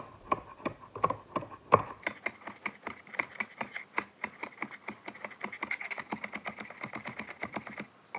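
Kitchen knife dicing green onion on a chopping board: a few slower cuts, then a fast, even run of chops that stops shortly before the end.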